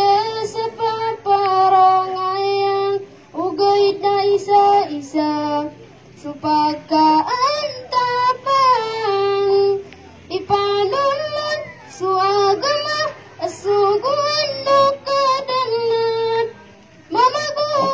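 A boy singing solo into a handheld microphone: long held notes with a wavering pitch, sung phrase by phrase with short breaks between them.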